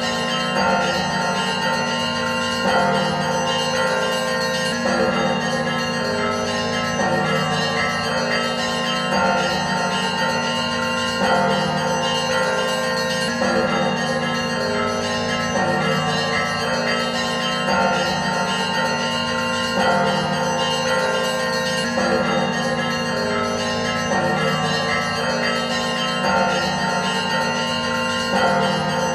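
Church bells ringing continuously, a repeating peal of several bells that cycles about every two seconds.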